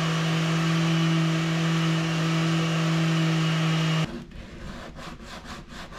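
Random orbital sander with a dust-extraction hose running steadily against the boat's painted wooden cabin molding, a loud hum under a hiss, cutting off suddenly about four seconds in. It is followed by quieter, even rubbing strokes of hand sanding.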